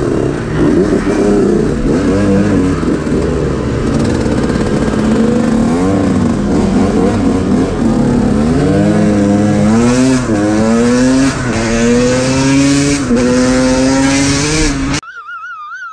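Two-stroke moped engine under way, its note climbing in pitch and dropping back again and again as it accelerates, with wind rushing over the microphone. The engine sound cuts off suddenly near the end, leaving a faint warbling tone.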